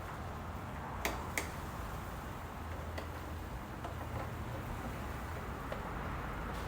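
Two sharp clicks about a third of a second apart, about a second in, then a few faint ticks, from small parts of a Tesla Model S door handle assembly being handled and fitted together, over a steady low rumble.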